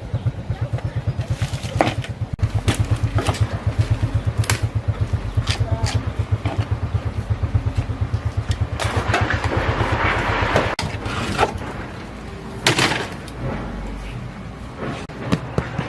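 An engine running with a steady low, rhythmic pulsing that stops about eleven seconds in, with sharp knocks scattered throughout.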